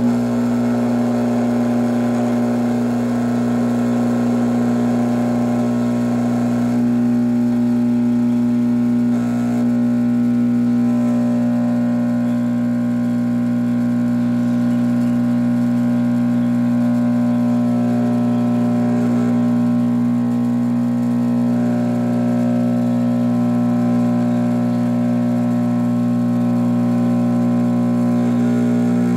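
Steady electric hum of a dental lab vibrator running while investment slurry is poured into a casting ring, shaking out air bubbles. It holds one even pitch throughout.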